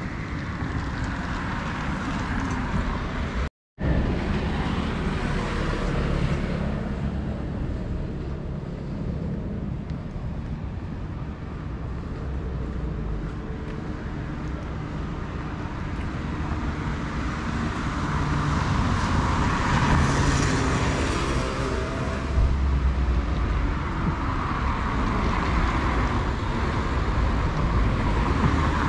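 Road traffic on a city street: a steady hum of cars, with passing vehicles swelling louder and fading twice in the second half. The sound cuts out completely for a moment about three and a half seconds in.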